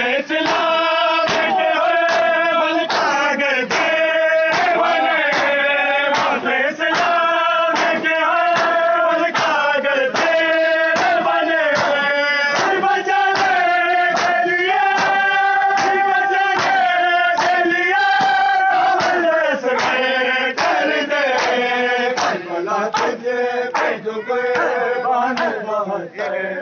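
Male voices singing a noha (Shia lament) in long held notes, over a crowd's rhythmic matam chest-beating: sharp hand slaps about twice a second.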